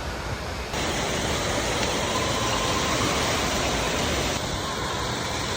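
Steady rushing noise of an indoor water park, with falling water and the echo of a large hall. It gets louder about a second in.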